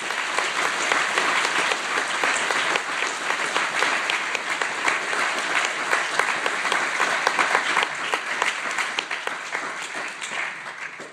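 Audience applauding, a dense continuous patter of many hands clapping that tapers off near the end.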